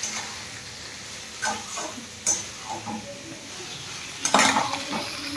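Slotted steel spatula stirring and scraping red sauce pasta in a steel kadai, over a steady sizzle of the sauce in the hot pan. A few scrapes stand out, the loudest about four seconds in.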